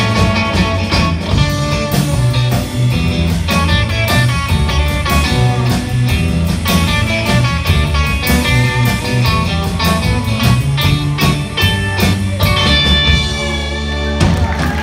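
Live rock band playing an instrumental: electric guitars, electric bass and drums with a steady beat. Near the end the drumbeat stops and the band lets a final chord ring.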